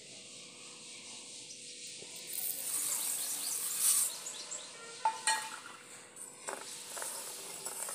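Sugar poured from a steel bowl into warm water in a metal kadhai, a dry hiss lasting about two seconds, followed by a few clinks of a steel spoon against the pan as the syrup is started.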